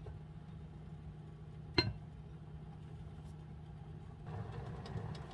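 Kitchen cookware over a steady low hum: a single sharp clink about two seconds in, as a utensil or lid strikes the curry pot. A soft hiss comes up near the end.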